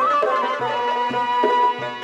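Traditional folk-style background music: a single ornamented melody line, holding long notes with quick turns, over a steady low drum beat.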